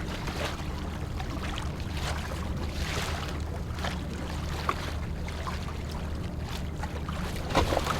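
Water washing and lapping against a kayak hull in soft swells about once a second, over a steady low drone.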